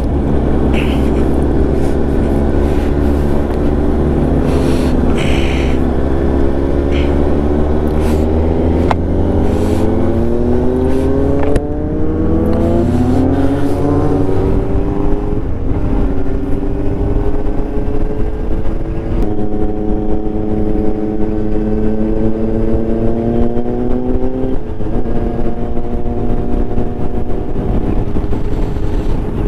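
Kawasaki Ninja 1000SX inline-four, heard from the rider's seat, pulling through the gears: the engine note climbs for several seconds, drops at an upshift about twelve seconds in, then cruises and climbs again, with another upshift near the end. Wind rumble on the microphone over the first third.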